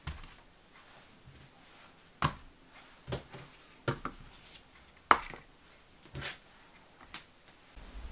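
Soft knocks and taps as spools and cardboard-wound bundles of macramé cord are set down and moved about on a cutting mat, about seven irregular knocks spaced roughly a second apart.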